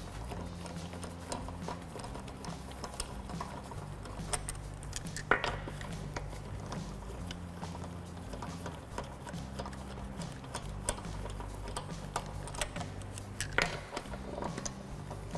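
Lug nuts being spun off a wheel stud by hand with a loose socket: light metallic ticking and clicking, with a sharper click about five seconds in and another near the end.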